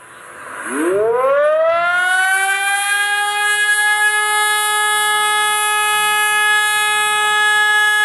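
Hörmann ASC ECN600 siren sounding a test: its tone sweeps up quickly from low pitch a little after the start and settles about two seconds in into a loud, steady wail that holds.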